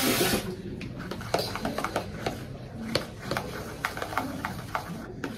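Tint brush stirring and scraping hair dye in a plastic tinting bowl: a run of irregular light clicks and taps. A running water tap stops just after the start.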